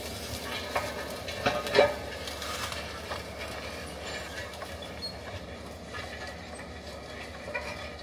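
Forestry forwarder's diesel engine running steadily as the machine drives over brush and young trees, with a few sharp knocks in the first two seconds.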